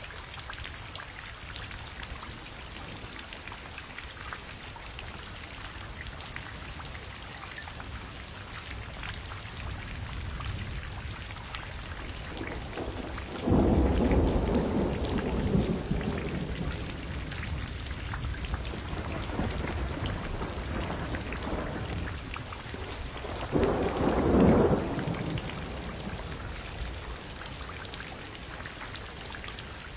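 Steady rain falling, with two rumbles of thunder: one breaking suddenly about halfway through and fading over a few seconds, and a shorter one about ten seconds later.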